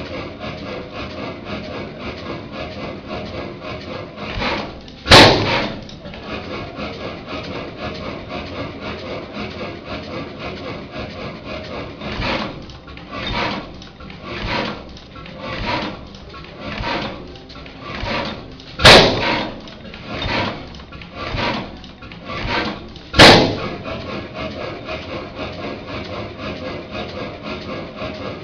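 35 hp Columbus Camstopper hit-and-miss engine, a horizontal single-cylinder with two large flywheels, running with a steady rapid mechanical clatter. It fires only now and then, with three loud sharp bangs: one about five seconds in and two more close together later, with softer thuds about once a second between them as it coasts on its flywheels.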